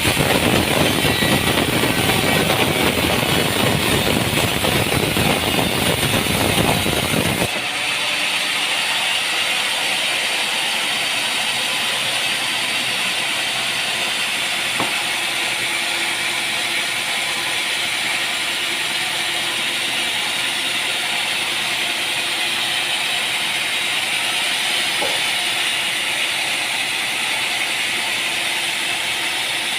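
Sawmill machinery running: a dense, full noise that changes abruptly about seven seconds in to a thinner, steady hiss.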